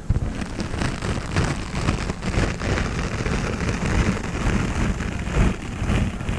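Honeycomb being crunched and squeezed close to the microphone: a dense run of irregular small wax crackles with soft low thumps.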